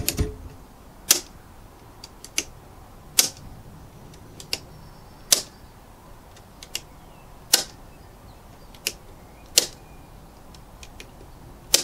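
Type A RCBOs in a consumer unit tripping one after another as their test buttons are pressed. Each trip is a sharp snap, about every two seconds, with fainter clicks of handling and switching between them, which shows each device's trip mechanism works.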